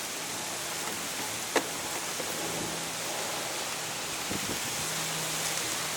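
Steady hiss with a faint low hum, and one sharp click about one and a half seconds in as a plastic mounting tab is pushed onto a dash cover bushing.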